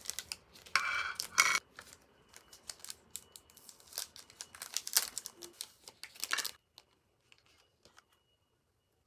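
Packaging being crinkled and torn open by hand: a run of crackles and rustles with two louder rips about a second in. It stops about six and a half seconds in.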